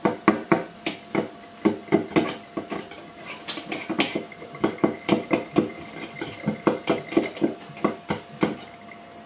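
A metal utensil clinking and knocking against crockery in quick, irregular strokes, as soggy mashed food is broken up so it will wash down the sink. The strokes stop shortly before the end.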